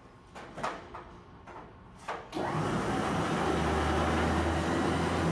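Electric Ramsey winch on a wrecker boom running steadily, winding in cable to raise the boom. It starts about two and a half seconds in, after a few light clicks and knocks, and runs at an even level with a low hum underneath.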